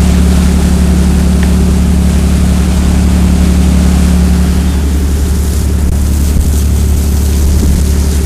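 Steady low engine drone of the Ranger 85 sportfishing boat running underway, over the rush of its churning wake and wind.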